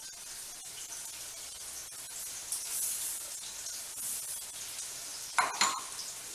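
Ground neem-flower powder being scraped and tapped out of a stainless-steel mixer-grinder jar onto a steel plate, a faint gritty rustle. About five and a half seconds in comes one sharp metallic clink.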